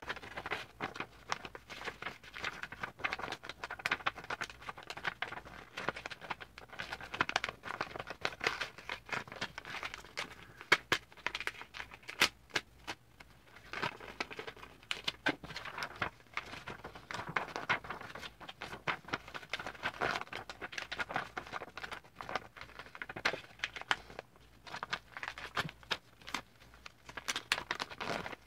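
Sheets of paper rustling and crinkling as they are handled and folded into paper airplanes, with many quick, sharp crackles from the creases being pressed.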